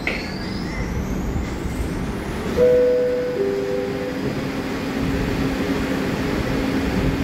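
New York City Subway R62 car's door-closing chime, a descending two-note ding-dong about two and a half seconds in, as the doors slide shut. A steady hum from the stopped train runs underneath.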